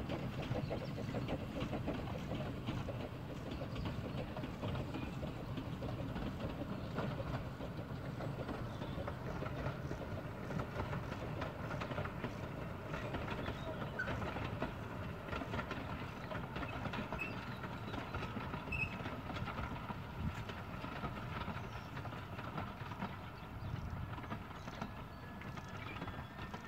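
Bagnall-built narrow-gauge steam train running along two-foot gauge track: a steady rumble and rattle of the locomotive and coaches, with the wheels clicking over the rail joints.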